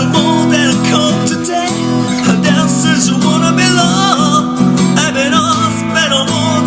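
Acoustic guitar strummed in a steady rhythm, its open first and second strings ringing through the chords, with a man's voice singing a wavering melody over it.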